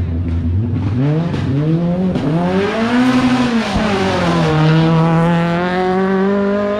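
Rally car engine accelerating through a hairpin: the pitch climbs over the first few seconds, drops around four seconds in, then holds steady at high revs.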